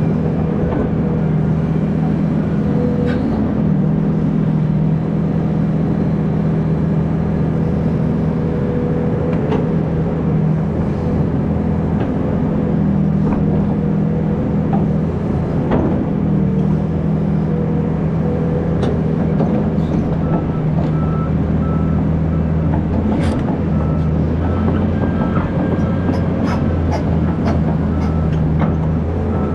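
Hydraulic excavator's diesel engine running steadily while it digs, with scattered light knocks. A faint, broken high tone comes in during the last third.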